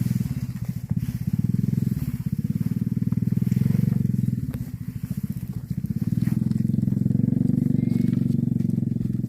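A small engine running steadily with a rapid, even putter, easing slightly about two seconds and again about five seconds in.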